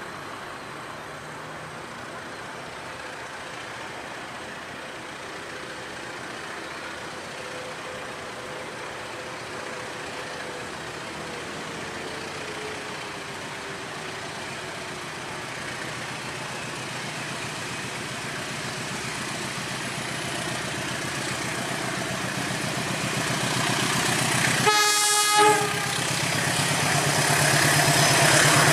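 KAI CC206 diesel-electric locomotive hauling a passenger train as it approaches, its running noise growing steadily louder. There is one short horn blast about three-quarters of the way through, and the engine's rumble is loudest near the end.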